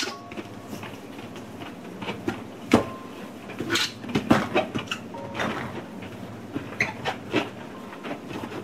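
Household items being handled during tidying: a string of light knocks, clicks and clatters, loudest about three and four seconds in.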